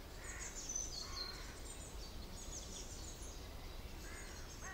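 Quiet outdoor ambience: a steady low wind rumble with scattered faint, high bird chirps.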